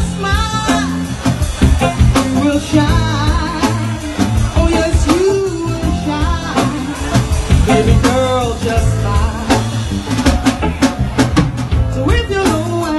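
Live band playing a song: drum kit beat, guitar and saxophone, with a woman singing lead.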